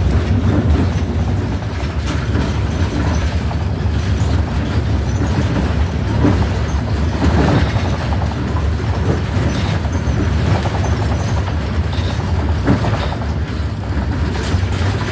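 Steady low rumble of a moving public-transport vehicle heard from inside, with a few brief knocks and rattles.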